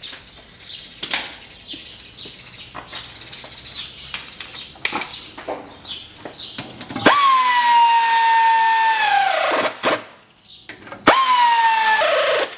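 Cordless electric ratchet running down the rear differential cover bolts. It gives a steady whine for about three seconds that sags lower in pitch as the bolt tightens, then stops, followed near the end by a second, shorter run of about a second.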